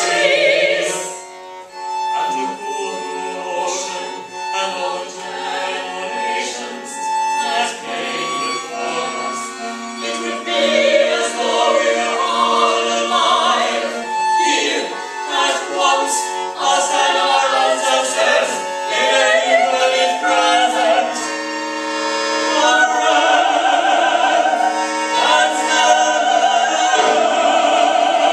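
Opera trio sung live: two sopranos and a baritone singing held, overlapping lines, accompanied by violin, cello and accordion.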